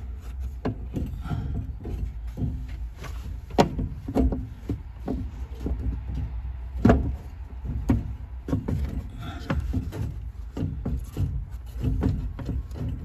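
Irregular clicks, knocks and rubbing of hands working on a new fuel pump assembly at the tank opening, with two sharper knocks about three and a half and seven seconds in, over a low steady rumble.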